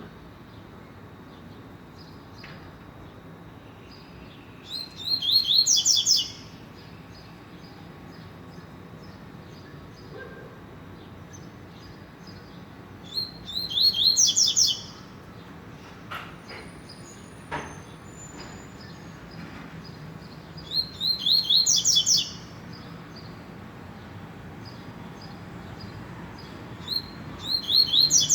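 Double-collared seedeater (coleiro) singing: four short, loud phrases of rapid high notes, each about a second and a half long, repeated every seven to eight seconds, with a few soft chips between them.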